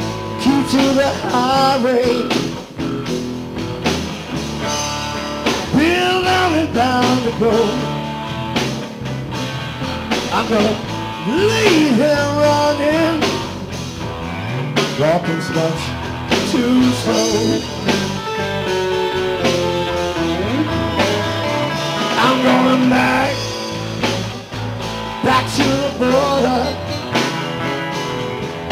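Live blues band playing an instrumental passage: electric guitar and bass, with a lead line of bending notes from a harmonica cupped against a handheld microphone.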